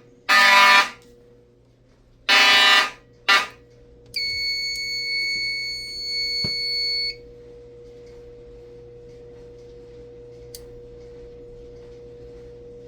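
Fire alarm horns, including an Edwards 892, sound in groups of three blasts with a longer pause between groups. The second blast of a new group is cut off short about three and a half seconds in as the alarm is silenced. A steady high electronic beep follows for about three seconds and stops, leaving a faint low hum.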